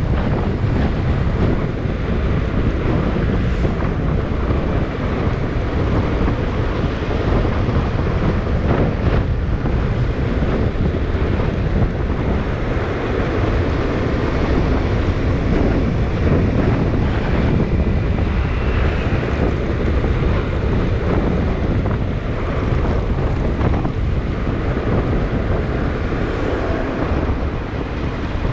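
Steady wind buffeting the microphone of a camera on a moving vehicle, a dense rushing noise strongest in the lows, with road noise underneath.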